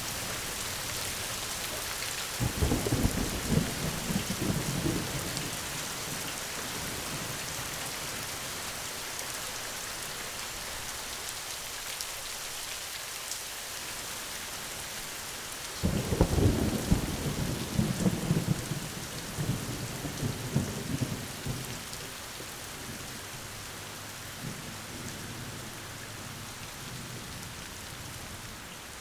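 Steady rain hissing, with two rolls of thunder: one starting about two and a half seconds in, and a louder one about halfway through, each rumbling on for several seconds.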